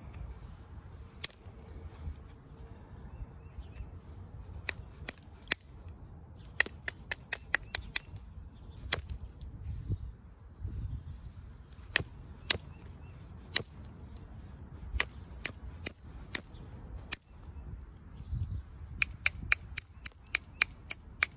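Copper-tipped billet tapping and striking the edge of a flint biface blade, knocking off small flakes: sharp clicks, some single and some in quick runs, with a fast run of taps near the end.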